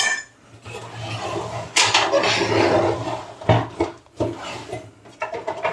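A DVD writer is slid into the drive bay of a metal PC cabinet. It makes a sliding, scraping, metal-on-metal handling noise, with a few sharp knocks past the middle.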